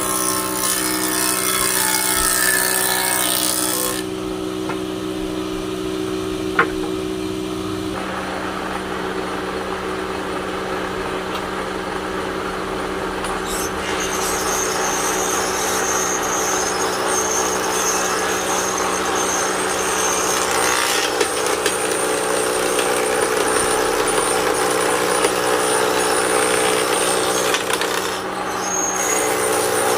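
Electric woodworking power tool running steadily and working wood, its motor hum constant while the cutting noise shifts several times as the load changes.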